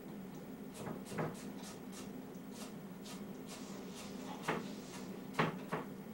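A series of light clicks and knocks with faint short scrapes between them, the loudest knocks about a second in and twice near the end, over a steady low hum.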